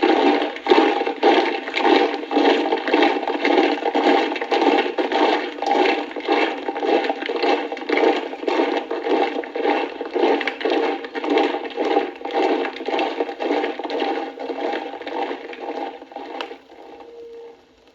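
Steady, regular tramping footfalls, about two to three a second, fading out near the end.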